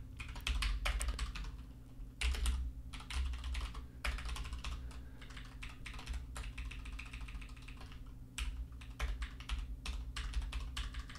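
Typing on a computer keyboard: quick runs of key clicks with short pauses between them, as code is written.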